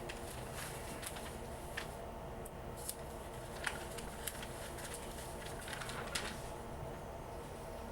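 Inside an old British Rail Southern Region 2EPB electric multiple unit: a low steady hum with a few faint steady tones, with scattered clicks and creaks from the carriage.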